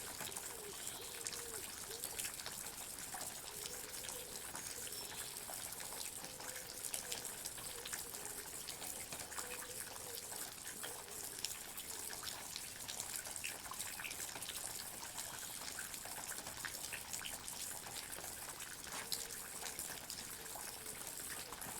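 Water drops falling and dripping in a forest: many small, irregular drips and plinks over a steady hiss.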